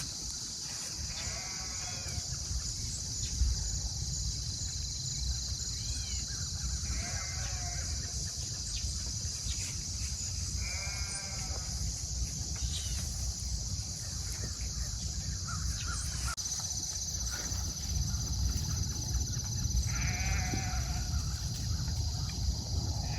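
Farm animal bleating, four or five short calls spaced several seconds apart, over a steady high-pitched hiss and a low rumble.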